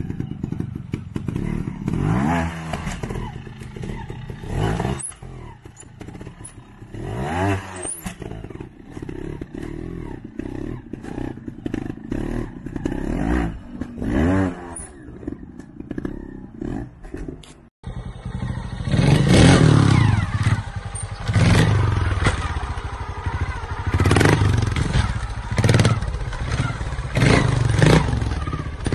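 Trial motorcycle engines blipped in short, sharp revs that rise and fall, a few seconds apart, with knocks and clatter as the bikes land on concrete obstacles. After a cut about two-thirds of the way in, the revs come louder and closer together.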